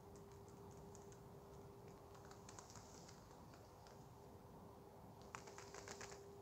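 Faint, quick ticking and clicking from water running under a thin sheet of clear ice. The ticks come in two clusters, about two and a half seconds in and again near the end, the second the louder.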